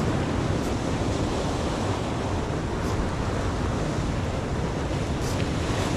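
Wind buffeting the microphone over the steady wash of surf, with a few faint clicks.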